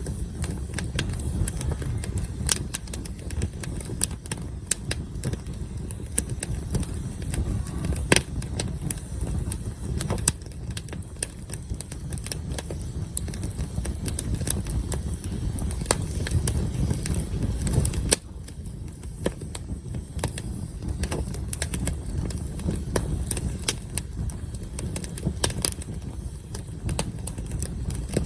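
Wood campfire crackling, with frequent irregular snaps and pops over a steady low rumble. A loud pop comes about eight seconds in.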